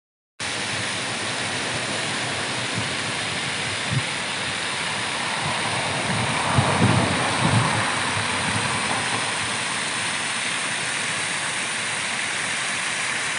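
Water rushing steadily down a stepped stone overflow weir, with a few low thumps about halfway through.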